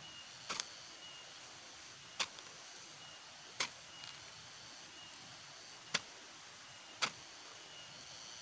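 Five sharp knocks or strikes, irregularly spaced about one to two seconds apart, over a faint steady hiss with a thin high chirping.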